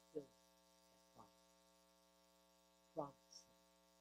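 Steady electrical mains hum through the sound system, a stack of evenly spaced tones. Three brief, faint voice sounds come about a quarter second, a second and three seconds in.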